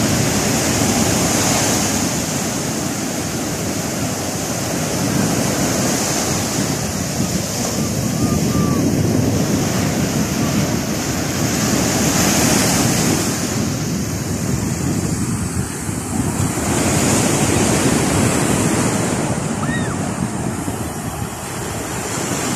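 Sea surf breaking and washing up a sandy beach, a continuous rushing that swells and eases every five or six seconds as each wave comes in.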